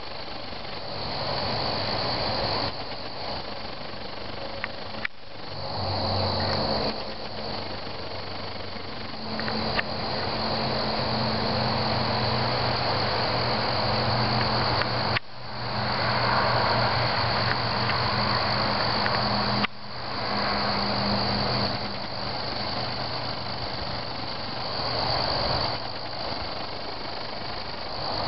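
Crickets chirping steadily over a low, steady hum and rumble like distant traffic. The sound drops out for an instant three times, where the recording is cut.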